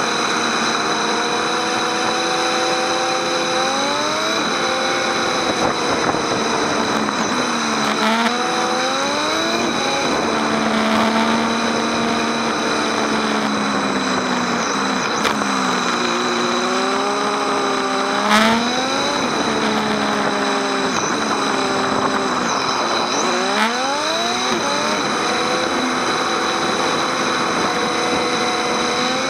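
Motorcycle engine heard from on board while riding: its pitch climbs as the revs rise, then drops back at each gear change, several times over, with a steady rush of wind and road noise underneath.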